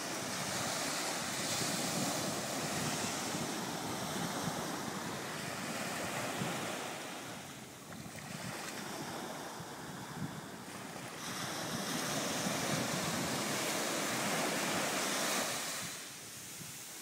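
Small sea waves breaking and washing up a sandy beach, in surges that rise and fall, easing off near the end.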